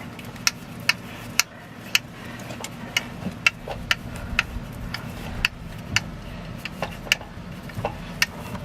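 Regular sharp ticking, about two ticks a second, over a faint steady low hum.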